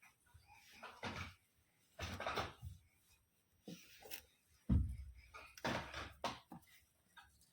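Irregular knocks and rustling of objects being handled, with a heavier thud about five seconds in.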